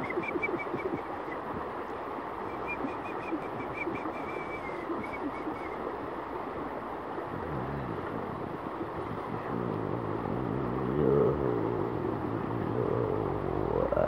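Steady rushing of water over rocks. A small bird trills a rapid run of high notes through the first few seconds. From about seven seconds in, a low sung hum comes in, gliding up and down in pitch, in the manner of overtone chanting.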